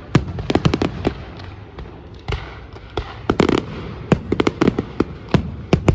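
Fireworks display: a rapid, irregular series of sharp bangs and crackles, some in quick clusters, over a continuous low rumble of distant bursts.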